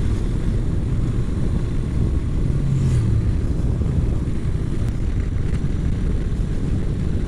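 Honda NC700X's parallel-twin engine running steadily at road speed, mixed with wind rushing over the microphone.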